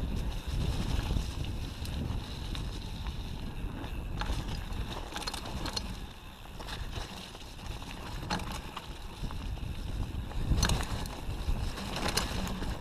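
Mountain bike ridden over muddy, leaf-covered singletrack: rumbling tyre and wind noise on the camera microphone, with scattered clicks and knocks as the bike rattles over roots and bumps, the loudest bump about ten seconds in.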